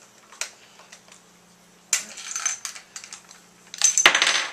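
Rifle cartridges (7.62x54R) clicking and clinking as they are handled in the loops of a loaded bandoleer: a single click, a short clatter about two seconds in, and a louder run of rattling clicks near the end.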